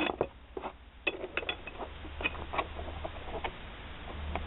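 Metal differential parts being handled and fitted together: about a dozen sharp clinks and knocks at uneven intervals, over a low steady hum.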